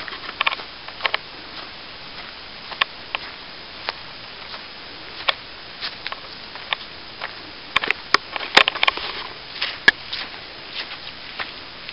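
Footsteps crunching on a dry dirt trail strewn with dead leaves and twigs: irregular sharp crackles and snaps over a steady hiss, with a flurry of louder snaps about eight seconds in.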